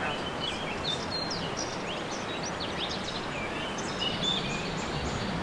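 Small birds chirping in quick, high, scattered calls over a steady outdoor hiss.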